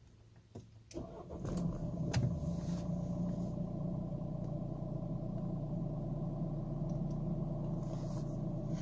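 Car engine started with the push-button starter about a second in, catching quickly with a brief rise in speed, then idling steadily, heard from inside the cabin.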